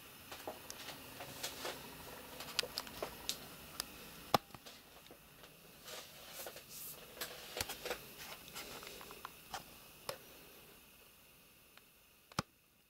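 Handling noise: a run of light, irregular clicks and rustles over a faint hiss, with one sharper click near the end.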